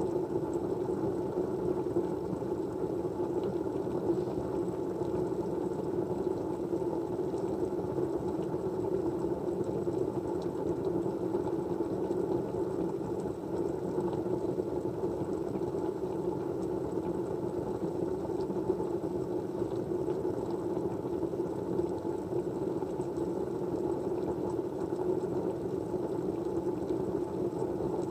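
Steady white-noise ambience: an even, low rushing hum with no distinct events, and a faint high whine above it.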